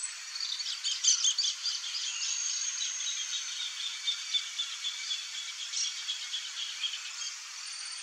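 Wild birds chirping and whistling in a busy run of short high calls, with a high, evenly pulsing insect trill that comes back near the end.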